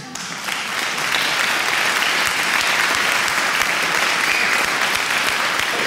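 A group of people applauding: dense clapping that builds up over the first second, then holds steady.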